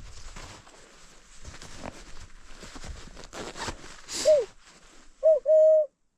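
Wind and rustling noise, then, from about four seconds in, a person's high hooting "woo" calls: a short one falling in pitch, a quick one, and a held steady one.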